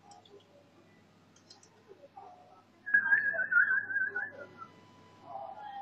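A person whistling a high, wavering note, starting about three seconds in and lasting about a second and a half.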